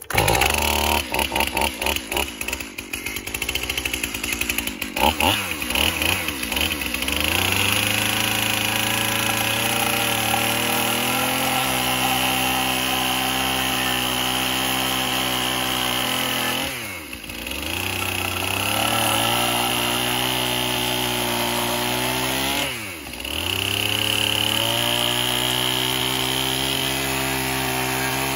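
Small battery-powered electric chainsaw (Saker mini chainsaw) running with a steady motor whine. Its pitch dips sharply and climbs back twice in the second half. Irregular knocks and clicks come in the first few seconds.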